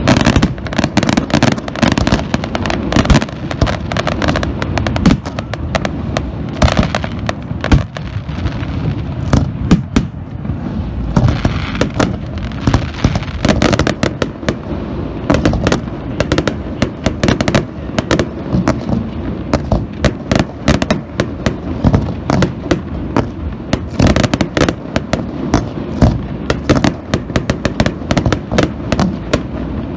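Aerial fireworks going off in a dense, continuous barrage, several sharp bangs a second over a steady low rumble.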